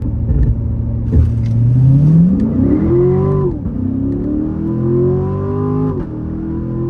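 Turbodiesel engine of the Omega car launching hard from a standstill in a 0-60 mph run. The engine note climbs from about a second in, drops sharply at an upshift about halfway through, climbs again, and drops at a second upshift near the end.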